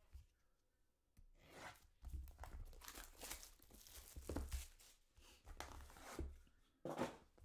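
Cellophane shrink-wrap being torn off a sealed trading-card box, a run of tearing and crinkling noises starting about a second in, the loudest rip near the end.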